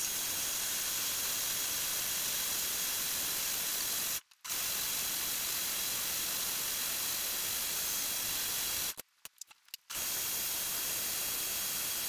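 KitchenAid countertop blender running at speed, puréeing carrots, apple and ginger with added water: a steady whirring that cuts out briefly about four seconds in and again for about a second near nine seconds in.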